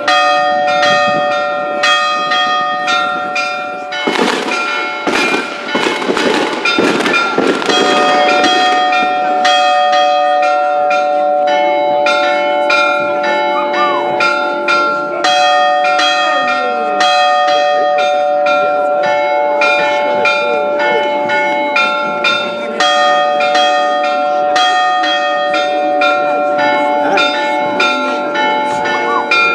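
Church bells ringing a festive peal, several bells at different pitches struck over and over in quick succession, about two strokes a second. A burst of noise comes in over the bells about four seconds in and dies away by about eight seconds.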